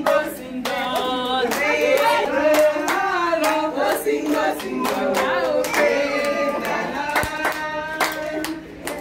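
A group of women singing a party song together over a steady beat of hand clapping; the sound cuts off abruptly at the very end.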